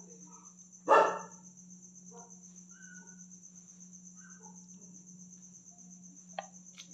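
A dog barks once, short and loud, about a second in, over the steady high chirring of crickets and a low hum.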